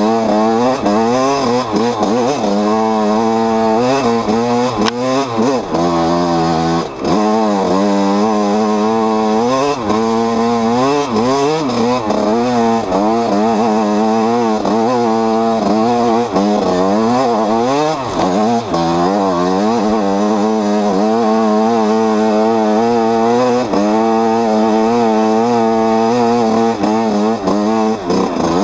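Enduro dirt bike engine heard close up from on board while riding, its revs rising and falling constantly with the throttle: a high, buzzing engine note.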